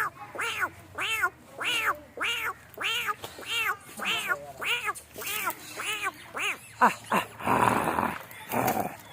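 Puppy crying in a steady string of short, high calls, each rising and falling in pitch, nearly two a second, turning into a couple of rougher, noisier yelps near the end.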